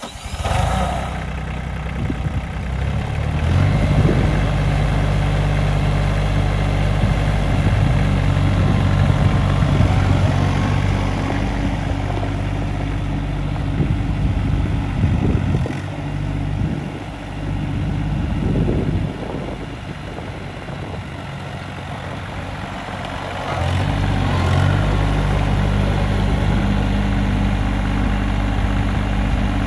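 New Holland TC29S compact tractor's diesel engine catching at the very start and then running steadily. Its speed rises and falls as the tractor is driven, dropping lower for a few seconds about two-thirds of the way through and then picking up again.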